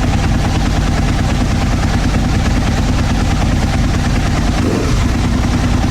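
First-generation Aprilia RSV1000 V-twin motorcycle engine idling steadily and loudly.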